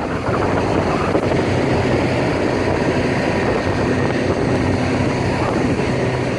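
Steady rushing of wind over the microphone, mixed with a vehicle running. A low engine hum comes up about two and a half seconds in.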